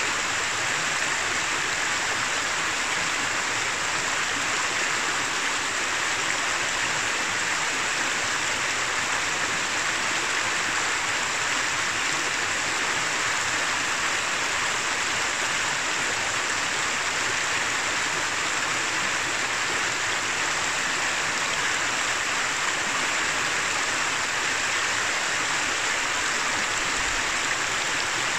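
Shallow mountain river running over rocks and stones: a steady, even rush of water.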